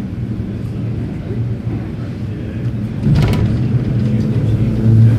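Red Rattler electric train rumbling. About three seconds in there is a short clatter, then a steady hum comes up that grows louder near the end.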